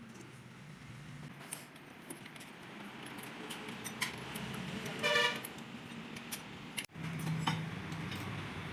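Light metallic clinks and jangles of tools over a low steady hum, with one short horn-like toot about five seconds in.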